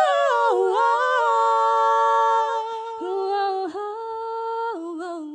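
A man and a woman singing a cappella into microphones, holding long sustained notes with no instruments. The pitch steps down a little about half a second in and again near the end.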